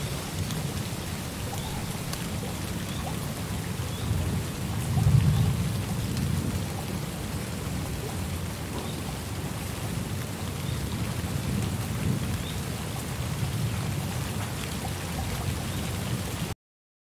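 Steady rain with low rolling thunder rumbling underneath, swelling loudest about five seconds in. The sound cuts off abruptly near the end.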